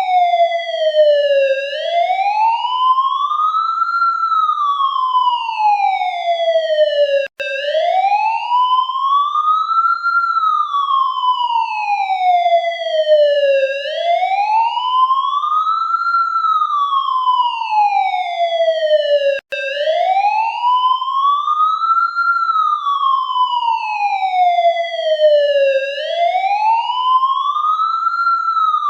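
Police siren sounding a slow wail: one tone rising over about two seconds and falling over about four, repeating roughly every six seconds. It cuts out for an instant twice.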